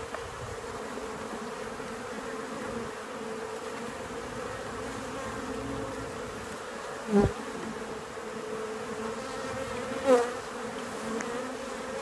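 Steady hum of many honey bees buzzing around an opened hive box, with two brief louder buzzes that fall in pitch about seven and ten seconds in.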